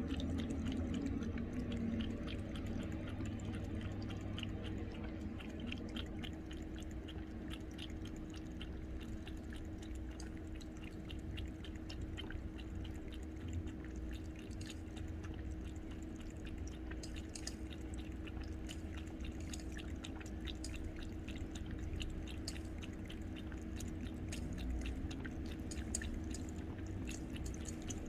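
A cat lapping water with its tongue, a rapid run of small wet clicks. A steady low hum continues underneath.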